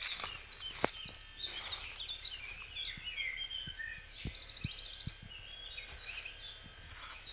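Several songbirds singing and chirping at once, with fast trills of evenly spaced notes about two seconds in and again in the middle.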